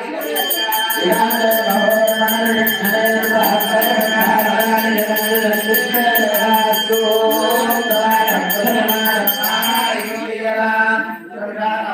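Devotional mantra chanting with music, over a bell rung rapidly and steadily at about four strikes a second that stops about ten seconds in, as during a lamp aarti.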